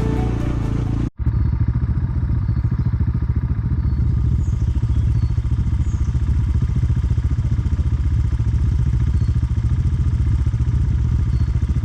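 Single-cylinder dirt bike engine running steadily at low revs, its firing pulses even and unbroken. Music cuts off about a second in.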